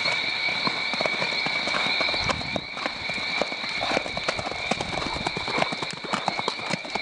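Hoofbeats of two ridden horses trotting and cantering on sand, a string of soft irregular thuds that grows louder as they pass close, about halfway through. A steady high-pitched whine runs underneath.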